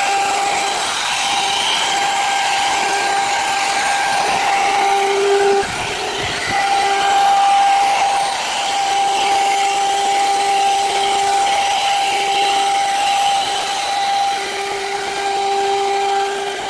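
An electric woodworking power tool running steadily with a constant high whine, a lower hum dropping in and out as it works the wood.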